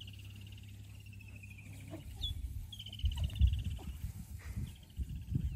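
Low, irregular animal grunts and snorts start about two seconds in and are loudest a little after three seconds. Above them a bird repeats a falling trill with short rising chirps.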